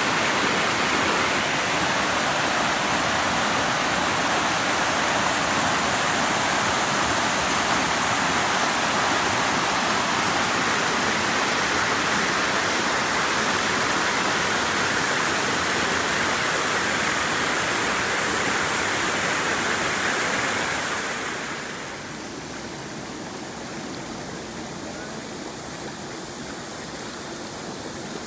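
Spring-fed stream rushing over moss-covered rocks in whitewater rapids, a loud, steady rush of water. About three-quarters of the way through it drops to a quieter rush of water spilling through a low stone mill dam.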